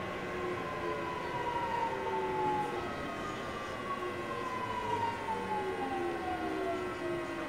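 Inverter and traction-motor whine of a JR East 209 series 500 subseries train with a Mitsubishi GTO VVVF inverter, heard over running noise. Several tones glide slowly down in pitch together, as the train slows under braking.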